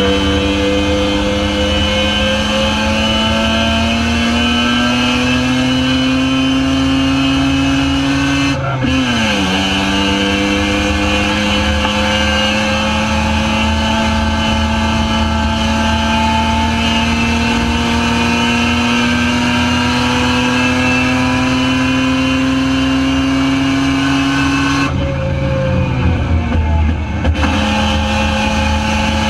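Spec RX-7 race car's rotary engine under full throttle, climbing in pitch, with a sharp upshift about nine seconds in and a long pull through the next gear. About 25 seconds in it lifts off and drops in pitch for a downshift, then goes back on the throttle.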